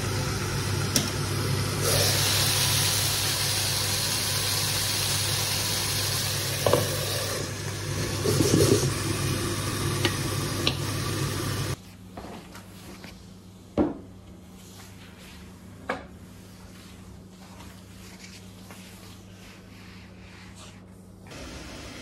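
Chicken pieces sizzling in a frying pan, turned with kitchen tongs, a steady frying hiss. About halfway through it cuts off suddenly to a much quieter stretch with a few soft knocks.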